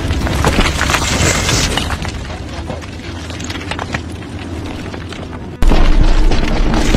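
Two mule deer bucks sparring, their antlers clacking and rattling in quick, irregular knocks over a heavy low rumble. About five and a half seconds in the sound cuts abruptly to a louder, deeper rumble.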